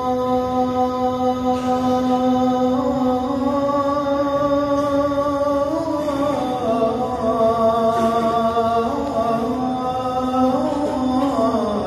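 A single voice chanting in long held notes that step slowly up and down in pitch, with a melodic, sung quality.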